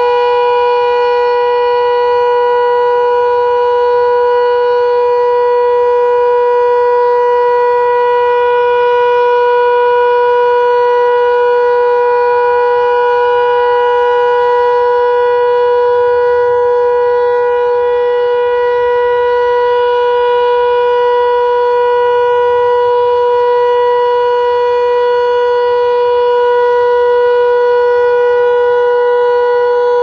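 Landert MSL-6 motor-driven civil-defence siren (11 kW) holding one steady, loud tone. This is Austria's "Warnung" (warning) signal, a long continuous tone that warns of approaching danger.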